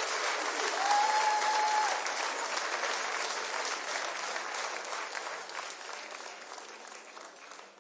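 Audience applauding, many hands clapping, with a whistle about a second in; the applause fades out gradually toward the end.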